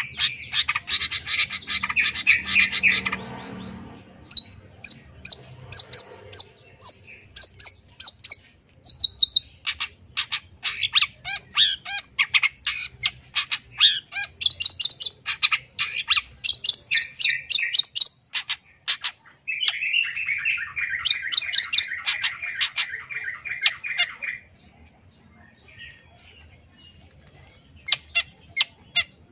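A long-tailed shrike (cendet) sings a fast, varied song of short, sharp, high notes, broken by stretches of scratchy chatter at the start and about two-thirds of the way through. The song is packed with mimicked phrases. It pauses a few seconds before the end, then starts up again.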